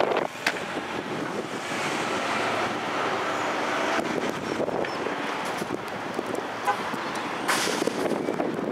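Car tyre and road noise while driving, heard through wind buffeting a roof-mounted camcorder's microphone, with a few short knocks.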